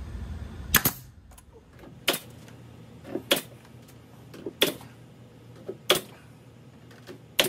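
WEN pneumatic nailer firing six sharp shots, about one every 1.3 seconds, driving nails through pine face-frame trim into a plywood cabinet. Some shots have a fainter click just before them.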